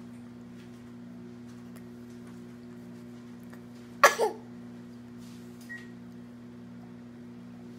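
A baby gives a short double cough about four seconds in, over a steady low hum.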